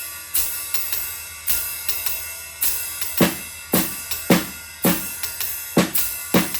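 Drum kit playing a swing beat: a steady ride cymbal swing pattern, with snare drum hits added on different subdivisions of the beat from about halfway in.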